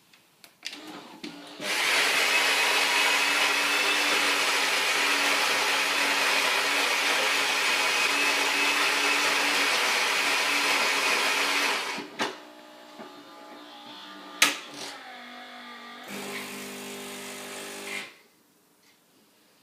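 Saeco Incanto automatic espresso machine running its coffee cycle with an unusually loud, steady whirring mechanical noise for about ten seconds, the strange noise its owner hears when coffee is made. It then stops, followed by quieter clicks, one sharp click and a short low hum before the machine goes quiet.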